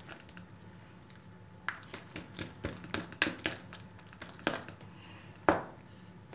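Clear slime (glue and borax water) being stirred in a bowl: wet squelches and a run of sharp clicks of the utensil against the bowl, with the loudest snap near the end.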